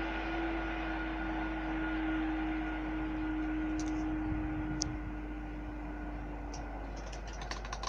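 Level crossing barrier machines running as the barriers lift, a steady even-pitched hum that stops about seven seconds in once they are up. A few short, sharp clicks come in the second half.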